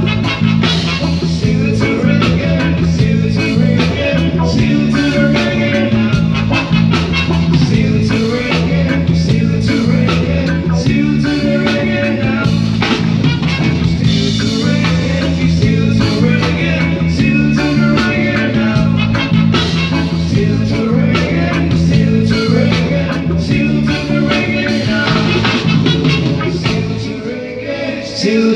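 Live reggae band playing an instrumental passage: a repeating bass line under electric guitar, hand drums and horns, loud and steady, thinning briefly near the end.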